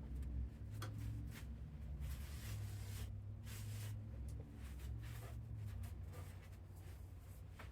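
Irregular soft rubbing and wiping strokes of a rag cleaning oily mechanism parts, over a low steady hum.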